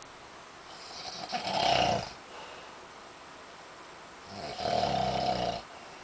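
A man snoring in his sleep: two long snores, each lasting about a second and a half, about three seconds apart.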